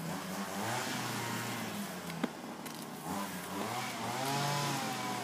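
A motor engine running, its pitch rising and falling slowly, with a single sharp knock about two seconds in.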